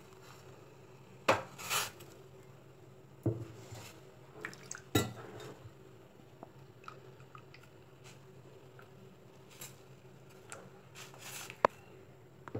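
Tea decoction and beetroot juice boiling in a steel pot, with faint bubbling and a handful of sharp metallic clinks and knocks.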